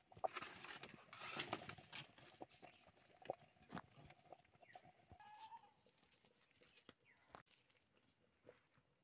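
Faint crackling and popping of a small wood fire under a bamboo cooking tube, with a brief rush of noise about a second in and one short call about five seconds in.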